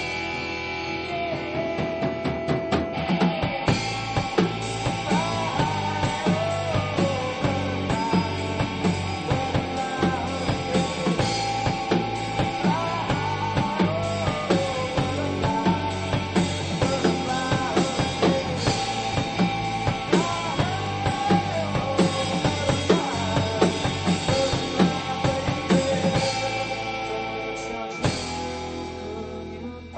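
Instrumental break of a rock song: a drum kit comes in a few seconds in and plays a steady beat under guitar, with a bending melodic lead line. Near the end the drums drop out.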